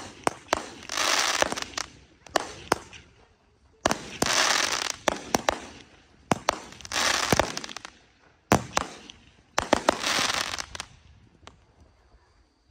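Aerial fireworks bursting overhead: a series of sharp bangs, several of them followed by about a second of hissing crackle, dying away near the end.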